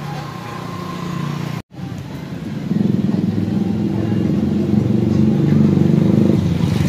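A motor vehicle engine running close by with a steady hum, getting much louder about three seconds in. All sound drops out briefly just before two seconds in.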